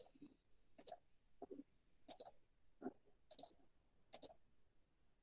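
Faint clicking as a computer is operated: about seven short, sharp clicks, irregularly spaced roughly two-thirds of a second apart.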